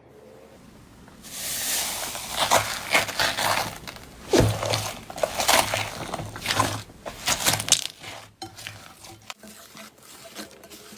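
Slime being pressed and squeezed by hand, a run of short squishy, crackly strokes about two a second that grows fainter to small clicks near the end.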